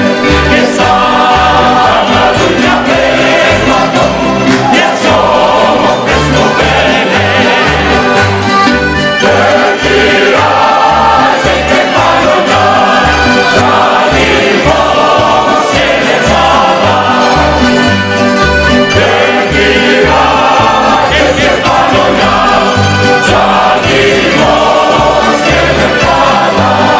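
Corfiot kantada: a group of voices singing in harmony over a plucked-string accompaniment with a steady, regular bass beat.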